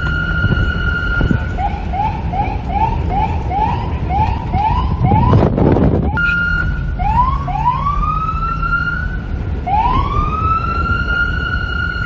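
Police car siren cycling through its tones: a held high tone, then a quick repeating rising yelp of about two or three chirps a second, then slower wail sweeps that rise and level off into the held tone again. A brief loud rush of noise cuts across the middle, over steady wind and traffic rumble.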